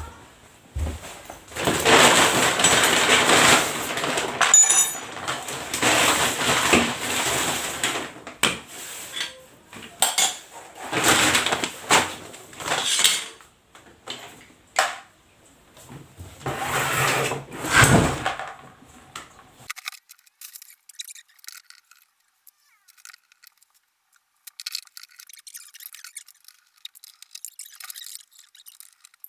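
Hand tools and metal parts clinking, scraping and knocking as a washing machine is taken apart to reach its bushing. This runs in loud, noisy stretches for most of the first eighteen seconds, then drops to faint crackling.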